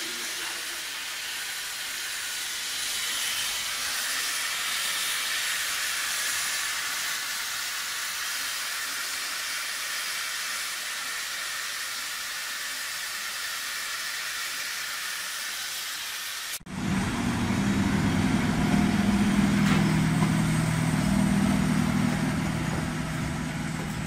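Steam locomotive Gr625 hissing steadily as it vents steam at a standstill. About sixteen seconds in, the sound cuts to an FS E655 electric locomotive running past with a louder, steady low hum.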